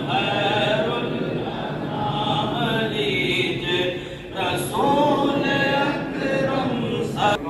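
Men's voices chanting a devotional salaam to the Prophet together, unaccompanied, in two long, drawn-out sung phrases, the second starting a little past halfway.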